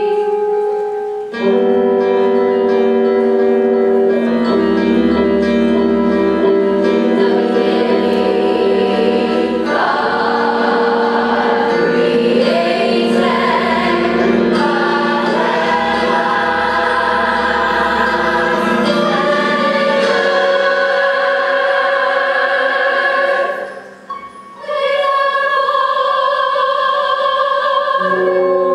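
A choir singing long held chords that change every few seconds. The sound breaks off briefly a little over a second in, and again for about a second near the end.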